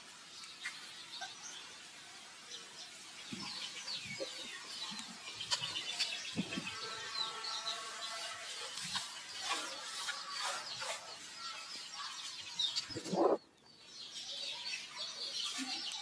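Birds chirping, with many short rising and falling calls overlapping throughout and a few soft knocks. About thirteen seconds in there is a louder burst, and then the sound drops off suddenly.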